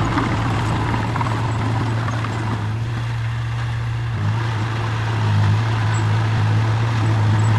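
Heavy construction machine's engine running steadily with a low hum, shifting slightly in pitch about four seconds in and growing a little louder after that.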